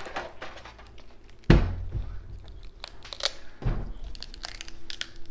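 Boiled king crab leg shells being cracked and pulled apart by hand: a run of sharp crackling and crunching, with two dull thumps, one about a second and a half in and another near four seconds.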